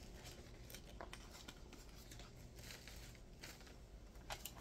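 Faint rustling and light crinkling of a parcel's wrapping being handled and pulled open, a few soft clicks and taps scattered through, the clearest about four seconds in.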